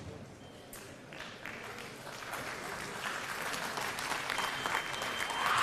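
Audience applauding, growing steadily louder.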